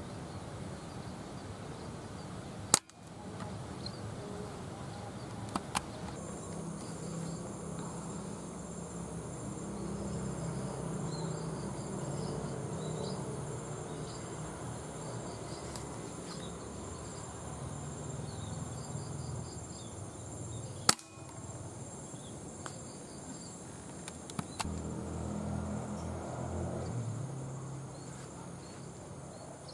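Two sharp shots from a multi-pump (uklik) air rifle firing 4.5 mm pellets, about 18 seconds apart, with a few fainter clicks between them. A steady high insect buzz starts a few seconds in and runs under the second shot.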